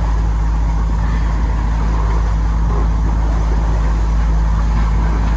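Sailboat's engine running steadily while under way (motor sailing), a constant low drone mixed with wind and water rush.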